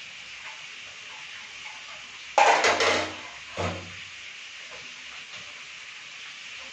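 Metal kitchenware clattering loudly about two and a half seconds in, followed about a second later by a short dull knock, over a steady sizzling hiss from the stove.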